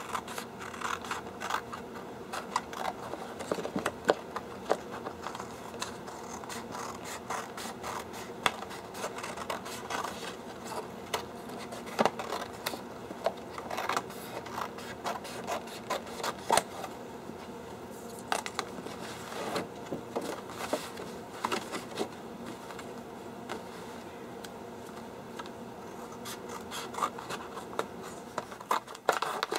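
Scissors cutting stiff posterboard in irregular crisp snips and scrapes, with rustling as the sheet is handled and shifted.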